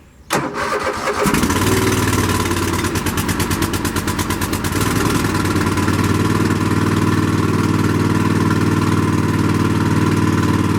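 Husqvarna zero-turn mower's engine cranks and catches about a second in, runs unevenly for a few seconds, then settles into steady running.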